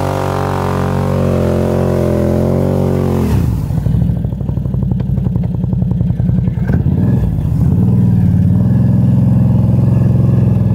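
Can-Am Outlander Max 800 XT ATV's V-twin engine running under throttle while the quad is manoeuvred to turn around in snow. Its revs drop sharply about a third of the way in, it chugs unevenly at low revs for a few seconds, then pulls steadily and louder again.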